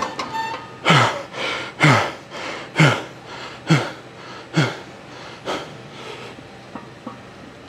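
A man exhaling hard and loud from heavy leg-training effort, about one voiced breath a second, each dropping in pitch. They stop after about five seconds.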